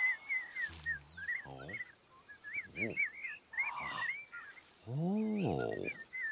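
Cartoon birdsong, quick high chirps repeating throughout, over several short low vocal grunts and a longer hum about five seconds in that rises and falls in pitch.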